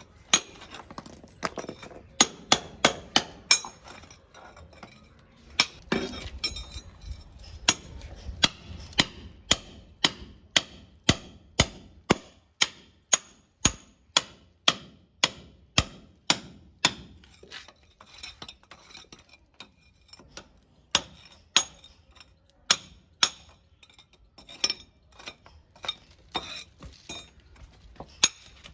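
A long series of sharp taps or knocks, about one to two a second and often in quick pairs, each cutting off quickly.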